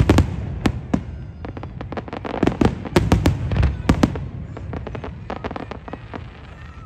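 Fireworks display: aerial shells bursting in quick succession, sharp bangs and crackles densest at the start and again about two to four seconds in, thinning out toward the end.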